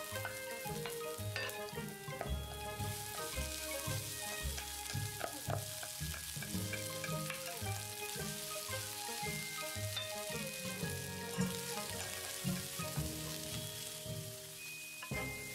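Onion, celery and cooked rice sizzling in oil in a nonstick frying pan while a wooden spatula stirs and scrapes through them. The sizzle grows louder about two and a half seconds in. Background music plays along with it.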